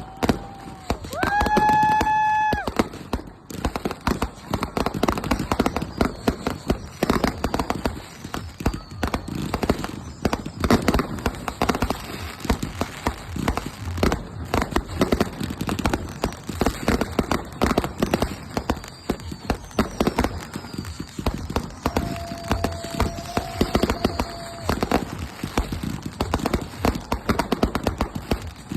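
Fireworks finale: many shells and crackling effects bursting in quick, unbroken succession. A loud held tone sounds briefly about two seconds in, and a fainter steady tone comes near the end.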